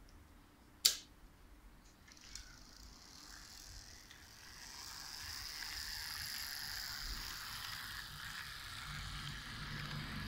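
Lima HO-scale model of a DB class 169 electric locomotive, fitted with a G-type motor, running with its coaches on the track: a sharp click about a second in, then the motor's whir and the wheels' rolling noise build up over a few seconds and hold steady.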